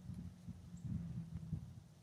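Soft, irregular hoofbeats of a young Warmblood horse on the sandy arena footing, low thuds with a faint steady low hum underneath.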